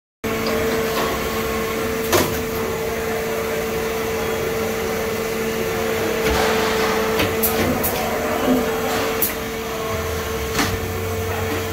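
Salvagnini P4 CNC panel bender running on test: a steady machine hum with a constant tone, broken by about five sharp clicks and knocks as it works. A deeper hum joins near the end.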